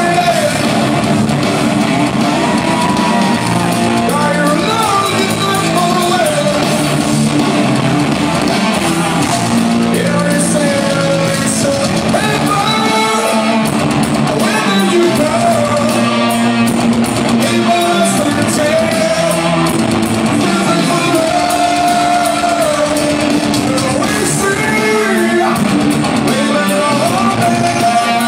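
Heavy rock band playing live in a large hall: distorted electric guitars, bass and drums under a sung lead vocal, heard from among the audience.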